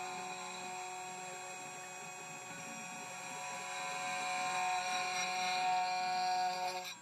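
2M2 Tank 2 Pro CNC key cutting machine running its cutter spindle as it cuts a key blank: a steady whine with a buzz, growing somewhat louder about four seconds in and cutting off suddenly at the end.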